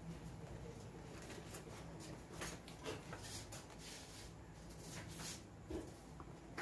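Faint handling noises of an ice hockey skate being turned over in the hands: a few soft knocks and rubs scattered over a low steady hum.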